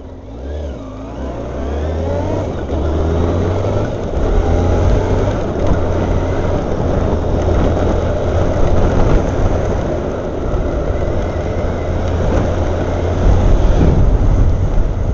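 Honda CBR600F motorcycle engine pulling away under throttle, its pitch rising in a couple of steps over the first few seconds as it gets louder. It then runs steadily at road speed under a constant rush of noise.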